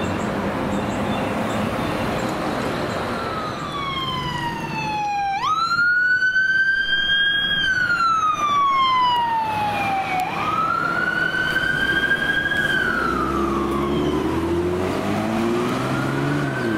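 Electronic wail siren on a fire department SUV running with lights, sweeping slowly up and down in long cycles. It starts a few seconds in over traffic noise. Near the end a second, lower rising tone joins it.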